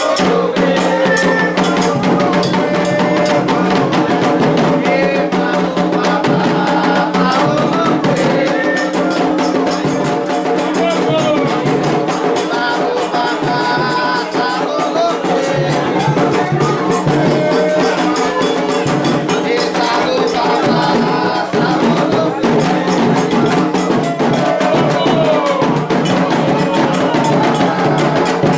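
Candomblé ritual music: drums and a struck bell or rattle keeping a fast, dense rhythm, with voices singing over it.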